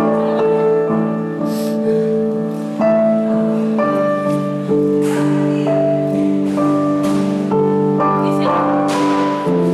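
Instrumental music: a slow melody over held chords, the harmony shifting about four seconds in and again near the end.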